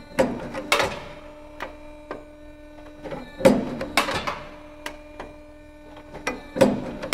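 Boschert EccoLine punching machine punching slots in a copper busbar: three strokes about three seconds apart, each a short cluster of sharp metallic clacks. A steady hum runs between the strokes.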